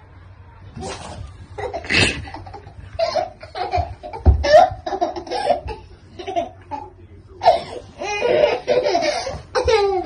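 A young child laughing in repeated bursts of giggles and belly laughs, with a soft thump about four seconds in.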